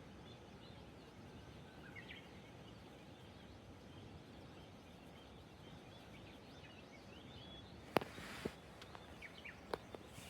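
Quiet outdoor ambience with a steady low hiss and a few faint bird chirps; about eight seconds in, a sharp snap followed by several smaller cracks and knocks.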